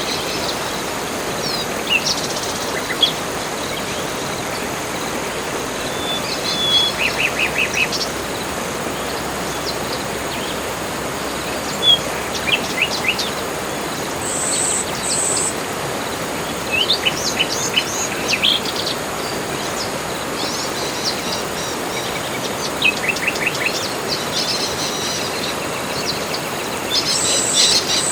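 Tropical forest soundscape: a steady hiss of background noise under a chorus of several birds, with short chirps and quick trills coming every few seconds and thickening near the end.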